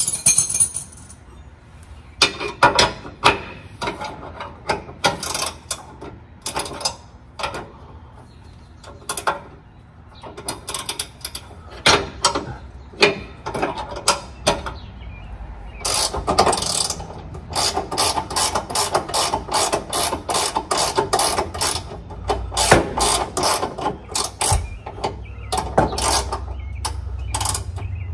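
Hand ratchet wrench clicking in runs with short pauses between, as the transmission bolts are undone from under the car. The runs become longer and faster about halfway through.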